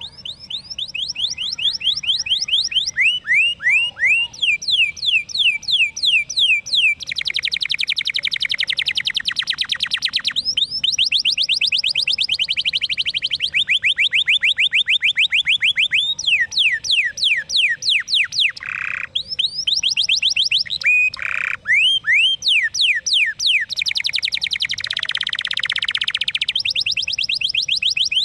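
Domestic canary singing a long, unbroken shrill song: fast runs of rapidly repeated down-slurred notes and rolling trills, with two brief steady whistled notes about two-thirds of the way through.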